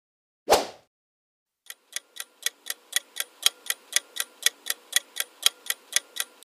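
Quiz countdown-timer sound effect: a clock ticking about four times a second for nearly five seconds. It is preceded, about half a second in, by a single short, sharp transition sound effect.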